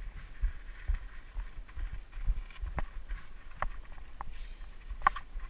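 Mountain bike rolling down a rough dirt trail: irregular low thumps and rattles as it rides over bumps and rocks, with a few sharp clicks and knocks, and wind hiss on the microphone.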